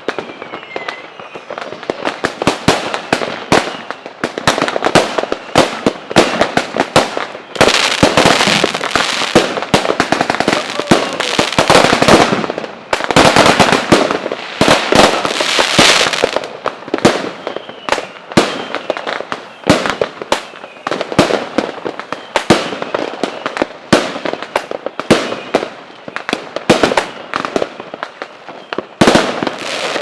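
Fireworks going off in a dense barrage of bangs and crackling pops, overlapping fast. Two long, heavy volleys fill the middle, and a single loud bang comes near the end.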